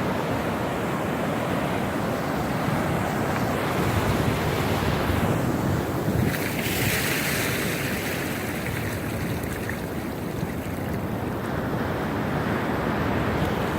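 Rough surf breaking and washing up the beach ahead of a hurricane, with wind buffeting the microphone; a hissing wash of foam stands out about halfway through.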